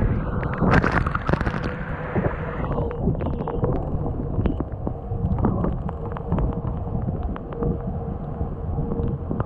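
Wind buffeting the microphone and water rushing past the hull of a Seacart 30 trimaran sailing fast, with many short sharp taps and knocks. A steady low hum runs under it.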